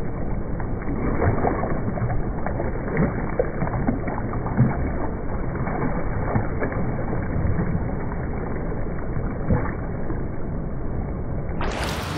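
Churning water splashing and gurgling close to the microphone, with many small splashes throughout. Music starts abruptly right at the end.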